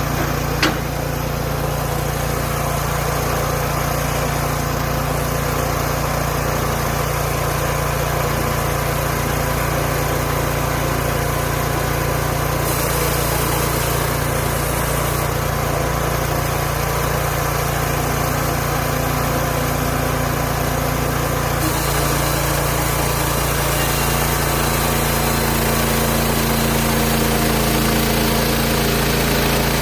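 Small gasoline engine of a bandsaw sawmill running steadily, its note shifting slightly about two-thirds of the way through.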